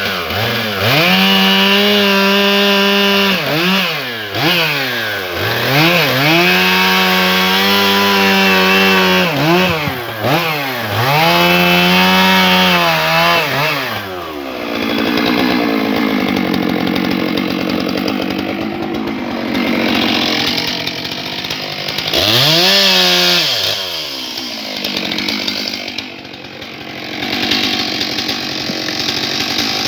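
Stihl MS 661 C-M chainsaw, a large 91 cc two-stroke, revving up and holding high four times, each spell lasting a few seconds, and dropping back between them. It runs at lower speed for a long stretch after the third spell. This is the saw bucking small logs.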